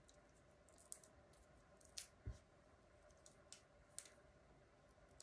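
Near silence: faint room tone with a few soft clicks and one low tap a little after two seconds in, from hands handling a small paper cut-out and foam adhesive dots.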